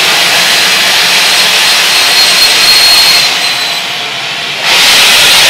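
BR Standard Class 5 steam locomotive No. 73156 letting off steam in a loud, steady hiss. The hiss eases a little past halfway and surges back just before the end.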